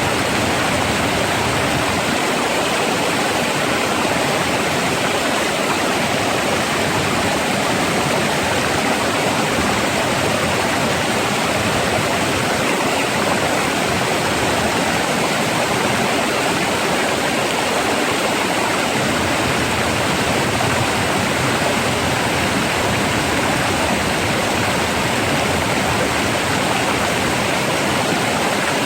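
Rough, rushing flowing water running in a steady, even rush.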